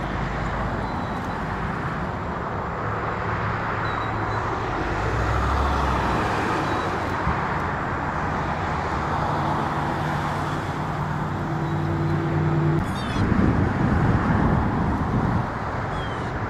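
Steady road traffic noise, a continuous rush of passing vehicles, with a low engine hum standing out in the middle and a rougher surge of rumble about thirteen seconds in.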